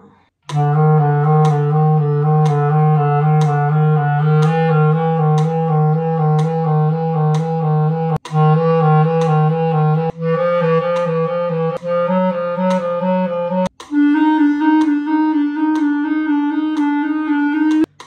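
Clarinet playing a practice étude in its low register: quick alternating notes, broken by a few short breaths, moving up to higher notes for the last few seconds. Evenly spaced clicks of a metronome run under it.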